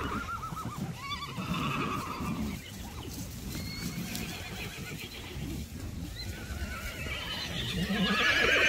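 Horses in a herd whinnying: two quavering neighs in the first couple of seconds, and a louder, higher one near the end.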